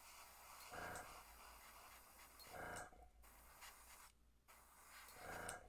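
Airbrush spraying paint, a faint steady hiss of air that stops briefly twice. Three short soft hums come about two seconds apart.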